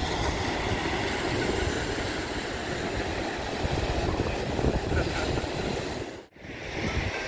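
Steady rush of wind on the microphone mixed with breaking surf, dropping out briefly about six seconds in.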